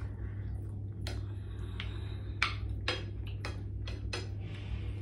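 Metal spoon and fork clinking against a ceramic bowl and plate while eating: a string of light, sharp clicks, about seven in a few seconds, over a steady low hum.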